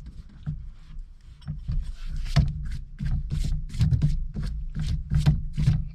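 A run of sharp clicks and knocks, about two or three a second, from a steering wheel being rocked on a loose aftermarket quick-release hub: the knocking is the play in the quick release.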